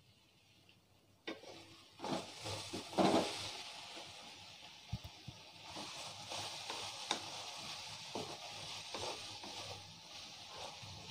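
Sliced okra frying in oil in an aluminium kadai, sizzling while a wooden spatula stirs and scrapes it against the pan. The stirring starts about a second in and is loudest soon after.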